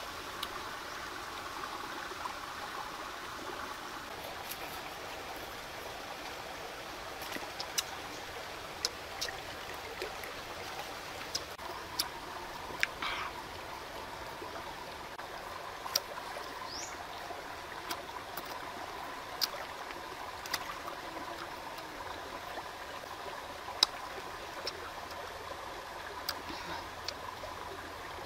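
Steady rushing noise like running water, with a faint steady tone and scattered sharp clicks at irregular intervals.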